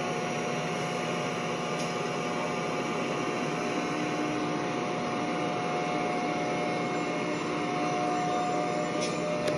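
LEGO train's small electric motor whirring steadily with a constant high whine, its plastic wheels rolling over plastic track as the coaches pass close by.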